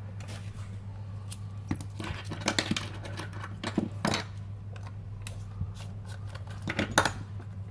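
Small metal hand tools being picked up and handled on a repair bench: scattered clicks and clinks, with a cluster about two seconds in, another near four seconds and a sharp one near the end, over a steady low hum.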